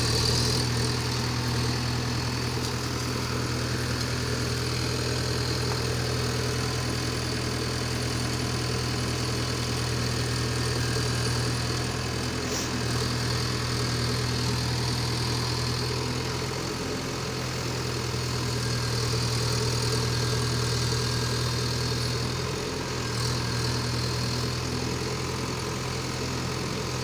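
Small excavator's diesel engine running steadily with a constant low hum, dipping slightly now and then.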